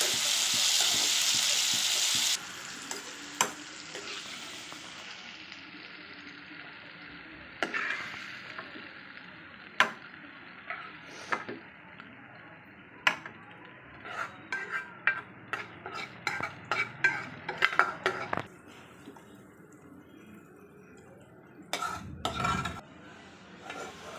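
Onions, tomatoes and green chillies sizzling in oil in a nonstick pan as they are stirred. The sizzle drops off sharply about two seconds in and fades away, followed by a run of quick spatula scrapes and taps against the pan and a steel jar as the mixture is scooped out.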